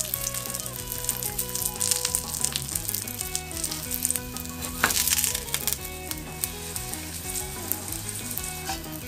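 Marushin hamburg patty and fried egg sizzling in hot oil in a nonstick frying pan, with many small spitting pops. There is a louder burst of sizzle about five seconds in. The patty is being fried hard until crisp.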